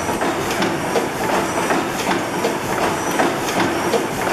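A 600-horsepower Snow-Holly Worthington reciprocating natural gas engine running slowly, with an even mechanical clacking about twice a second.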